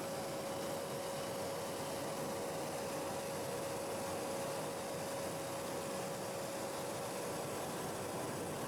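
Steady mechanical drone: a constant hum holding one steady tone over an even rushing noise, unchanging throughout.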